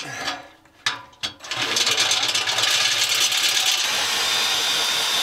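Power drill boring a hole through the metal frame of a battery rack: a few short starts of the bit, then from about a second and a half in continuous drilling, with a steady high whine joining about 4 seconds in as the bit cuts into the metal.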